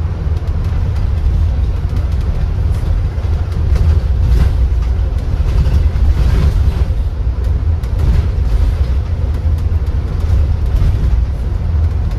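Steady low rumble of a sightseeing bus on the move, heard from on board: road and engine noise with a few faint rattles.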